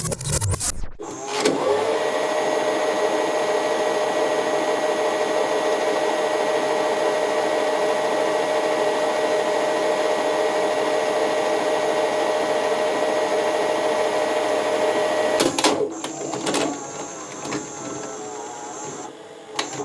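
Tape machine rewinding: a motor spins up about a second in, then runs as a steady whir with hiss and a held tone. It cuts off near the end, followed by a few clicks and quieter mechanical whirring.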